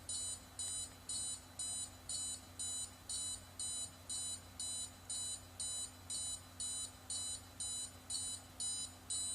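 Arduino alarm's buzzer beeping steadily, about two short high-pitched beeps a second: the alarm has been tripped and keeps sounding until it is reset.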